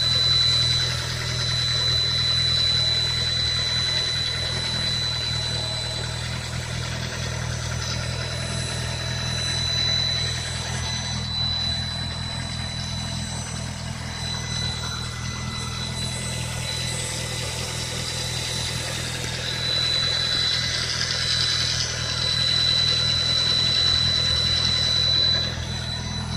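Nissan GA16 1.6-litre four-cylinder petrol engine idling with a steady high-pitched whistle over it. The whistle is loudest at first, fades for a while, comes back strong for the last several seconds and drops away just before the end.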